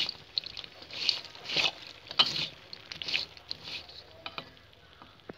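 Spatula tossing a crisp, sugar-coated mix of cornflakes, peanuts and dried anchovies in a wok: bursts of dry rustling and scraping about every half second, fading out near the end.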